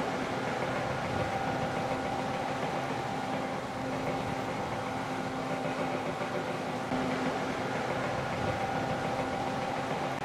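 Steady street traffic noise with an engine running.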